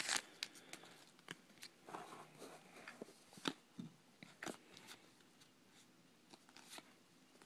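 Trading cards being handled and flipped through by hand: faint, scattered soft clicks and rustles, with a couple of sharper ticks about three and a half and four and a half seconds in.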